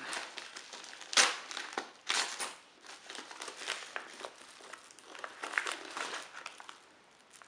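Package wrapping being crinkled and handled as it is opened, an irregular rustle with sharp crackles, the loudest about a second in and again about two seconds in.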